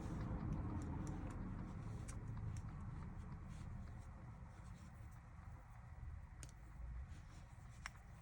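Faint handling noise of small parts on a power steering pump housing as an O-ring is changed: a low rumble and a few scattered light clicks.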